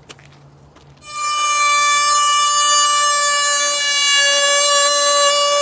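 An electric horn sounding one loud, steady, unwavering note for about five seconds, starting about a second in and cutting off abruptly.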